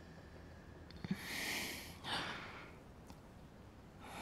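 A person's breathing: a drawn-in breath about a second in, then a short breath out like a sigh.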